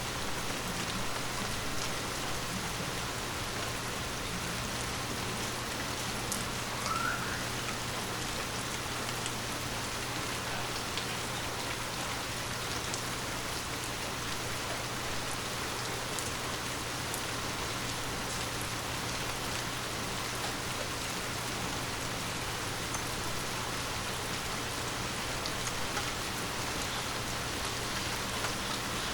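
Light rain falling steadily, an even hiss with scattered faint ticks of individual drops.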